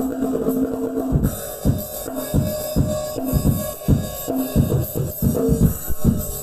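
Drum kit with a box bass drum played in a groove, the kick thumping about three times a second with cymbal and snare on top, over music with pitched notes. Recorded through a phone's microphone.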